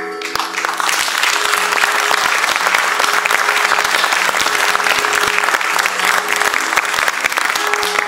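Theatre audience applauding, swelling about a second in and holding steady, with quiet music continuing underneath.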